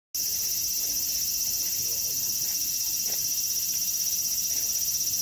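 A steady, high-pitched chorus of summer insects with a fast, even pulse.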